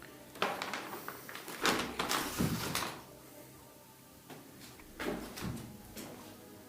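Irregular knocks, scrapes and clatters, about half a dozen over several seconds, the loudest cluster a few seconds in.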